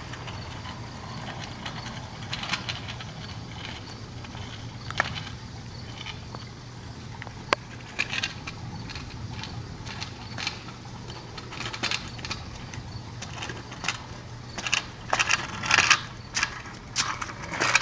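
Kick scooter's small wheels rolling and rattling over asphalt, with scattered sharp clicks; the rattling grows louder and busier near the end as the scooter comes close.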